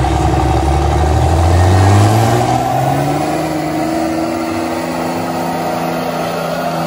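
A big truck engine revving hard, its pitch climbing over the first two to three seconds, then held at steady high revs.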